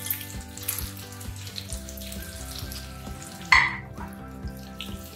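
Potatoes, green peas and onion-tomato masala sizzling in oil in a nonstick kadai, under a heap of freshly added chopped spinach (palak). A short, louder burst of noise comes about three and a half seconds in.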